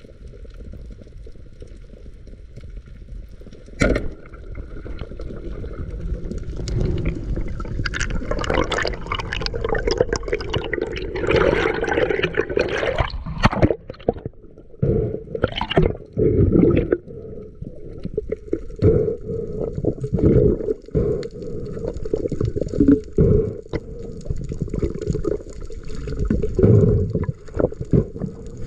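Underwater sound through a camera housing: a sharp crack about four seconds in, typical of a wooden band speargun firing, then water gurgling and rushing in uneven surges.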